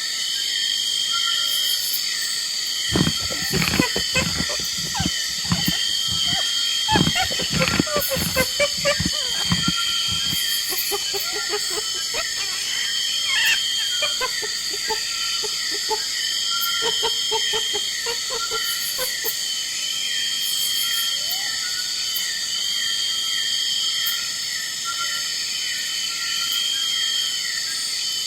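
Steady chirping insect chorus, with a series of loud, sharp animal calls from about three to ten seconds in and fainter pitched calls trailing off until about nineteen seconds.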